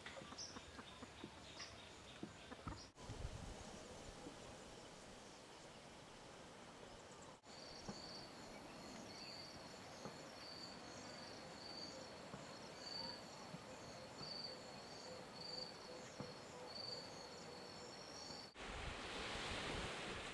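Faint outdoor ambience joined from several clips. Through the middle stretch a high, thin chirping repeats about once a second; near the end a rush of wind noise on the microphone takes over.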